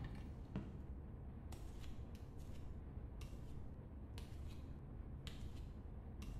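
Slow, soft footsteps on a stage floor, a light scuff about once a second, over a low steady background rumble.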